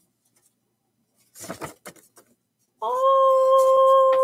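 A short rustle of paper being handled, then a woman's long 'ooooh' of delight, held steady at one pitch for nearly two seconds and dipping slightly at the end.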